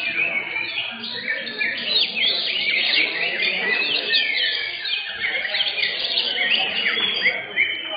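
Several greater green leafbirds (cucak hijau) singing at once in competition. It is a dense, unbroken stream of quick chirps and short sliding notes overlapping one another.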